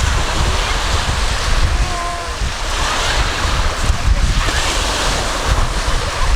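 Sea waves washing on the shore, with wind buffeting the microphone in a heavy low rumble.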